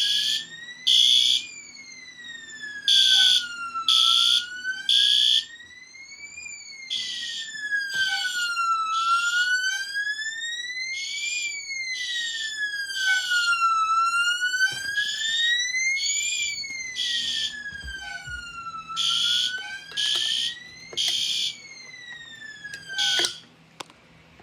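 System Sensor SpectrAlert Advance fire alarm horn sounding in a Code-3 temporal pattern, short blasts in threes with a pause, over a Qwork alarm siren that sweeps slowly up and down about every five seconds. Both cut off together near the end.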